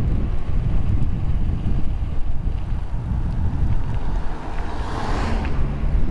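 Wind rumbling on the microphone of a camera on a moving mountain bike; about five seconds in, a car coming the other way passes close by, a brief rising and falling rush of engine and tyre noise.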